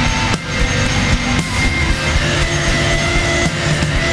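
Instrumental post-rock band playing loudly in a live recording, with layered electric guitars holding sustained notes over drums, and sharp drum hits about half a second and a second and a half in.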